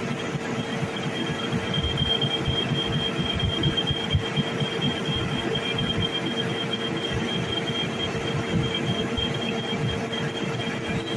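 Metal lathe running: a steady high-pitched whine with a lower steady hum over an uneven low rumble.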